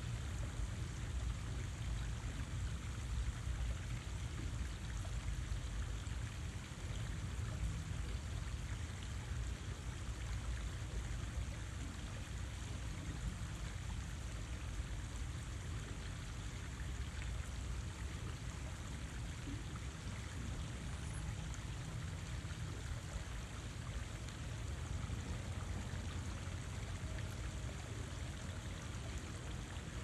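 Water running steadily, an even trickle and splash with a low rumble underneath.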